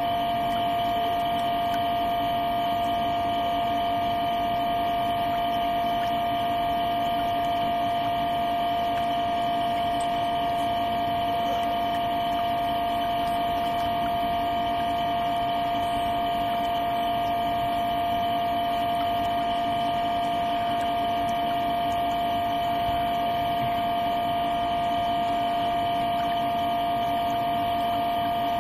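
Jacuzzi jet pump running with a steady hum made of several held tones, over the rush of water churning from the jets.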